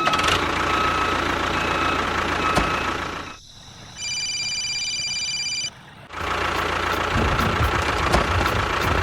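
A small motor or engine running steadily with a faint whine, which drops away about three seconds in. A steady high beep follows for under two seconds, and then the running sound comes back.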